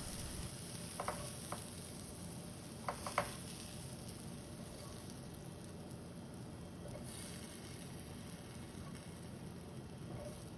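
Faint steady sizzle of a non-stick frying pan with food frying in butter, with light clinks of a utensil against the pan or plate: two about a second in and two more about three seconds in.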